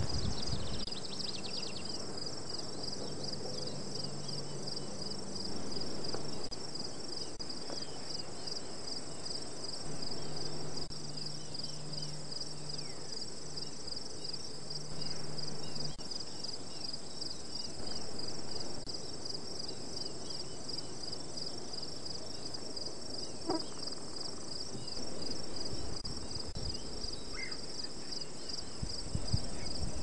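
Steady chorus of insects: a high, rapidly pulsing trill that runs on unbroken.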